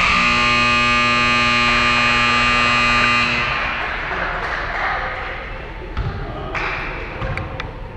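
Gymnasium scoreboard buzzer sounding one steady, loud tone for about three and a half seconds, then dying away into the hall's reverberant noise. A few sharp knocks follow near the end.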